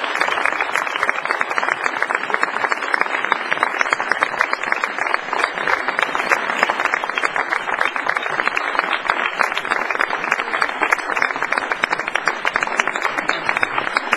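An audience applauding: many people clapping at once in dense, steady applause.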